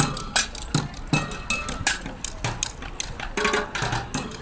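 Sharp knocking strikes at an uneven pace of roughly two a second, some leaving a brief high metallic ring.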